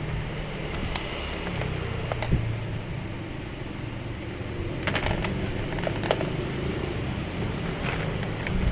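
A scattering of short, sharp metallic clicks and clinks from hand tools working on a scooter's front fork, over a steady low hum.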